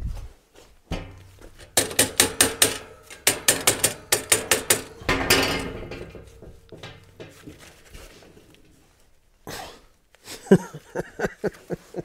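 Rapid runs of sharp metallic knocks and rattles, several a second, from a diesel heater's flexible stainless exhaust pipe being worked and knocked loose at a joint stuck with exhaust paste. A second, shorter run of knocks comes near the end.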